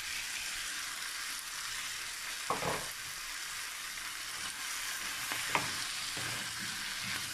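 Sliced chayote sizzling in butter in a frying pan, with a steady hiss, stirred with a wooden spoon that knocks against the pan twice, about two and a half and five and a half seconds in.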